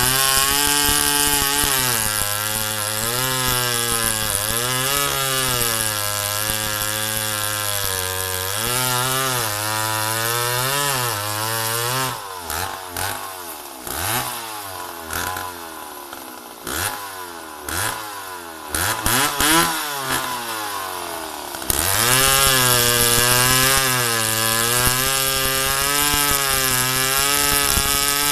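McCulloch Pro Mac 700 two-stroke chainsaw cutting a log at full throttle, its pitch sagging and recovering under the load. After about twelve seconds it comes out of the cut and drops toward idle with short throttle blips. About ten seconds later it returns to full throttle in the cut.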